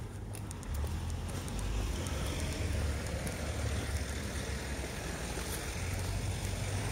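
Road traffic on a city street: a steady low rumble of passing vehicles, growing louder about a second in.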